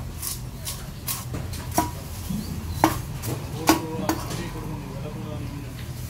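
A large fish-cutting knife working down a skipjack tuna on a wooden block: about five sharp knocks, several with a short metallic ring, the loudest about three seconds in. A steady low hum runs underneath.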